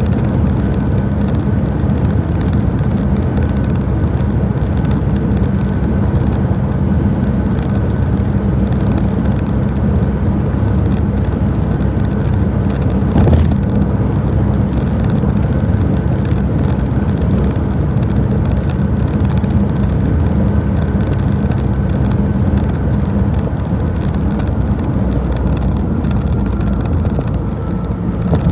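Car driving along: steady low road and tyre noise with a faint steady whine above it, and a brief louder rush about 13 seconds in.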